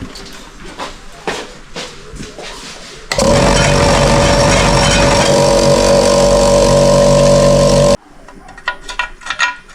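Electric air compressor switched on: motor and pump run with a loud, steady hum and a held whine, starting suddenly about three seconds in and cutting off suddenly about five seconds later. The compressor is faulty: it makes a weird sound and isn't pumping air, the gauge not moving while it runs.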